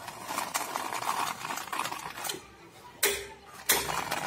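A cut sunmica (laminate sheet) template scraped along wet cement mortar, shaping a moulding profile on a ledge. Two sharp knocks come about three seconds in and again shortly after.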